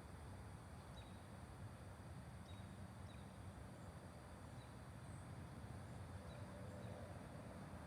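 Near silence: a faint steady outdoor hum, with a few faint short high chirps scattered through it.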